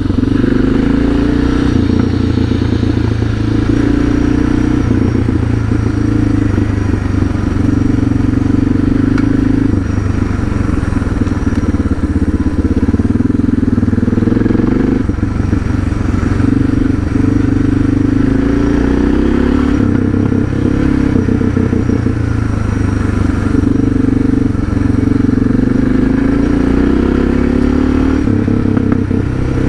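Suzuki DR650's single-cylinder engine running steadily as the bike is ridden along a dirt road, its note shifting a little with the throttle.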